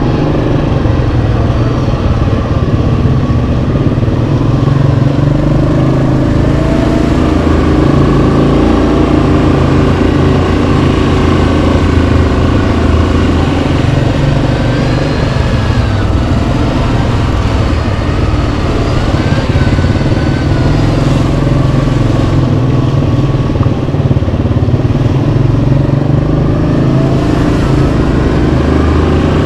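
Yamaha Kodiak 700 ATV's single-cylinder engine running continuously, its pitch rising and falling a little with the throttle.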